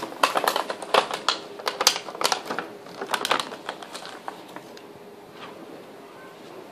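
Puppy chewing a thin clear plastic strawberry clamshell container: rapid crackling and clicking of the plastic under its teeth. The crackling is dense for the first three seconds or so, thins out, and stops about four and a half seconds in.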